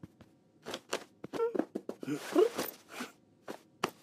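Cartoon sound effects: a quick run of clicks, knocks and rustling, mixed with a few short rising vocal noises of a cartoon character, and two sharp clicks near the end.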